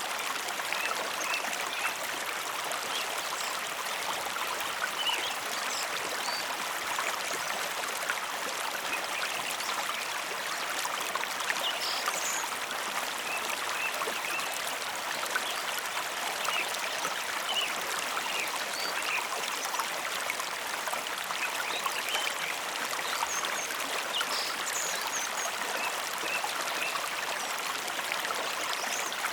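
Mountain river flowing: a steady rush of water, with short high-pitched sounds scattered through it.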